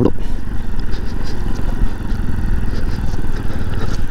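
Bajaj Pulsar NS200's single-cylinder engine running steadily as the motorcycle rides over a loose, rocky gravel bed, with faint clicks and scrapes from the stones.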